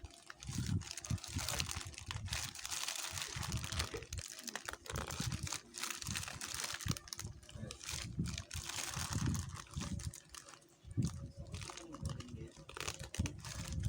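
Plastic courier mailer being torn apart by hand: irregular crinkling and ripping, with dull handling bumps underneath.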